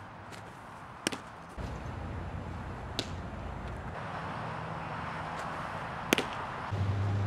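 A baseball popping into a catcher's mitt: sharp single pops about a second in and about six seconds in, the second the louder, with a fainter one around three seconds in, over outdoor background noise.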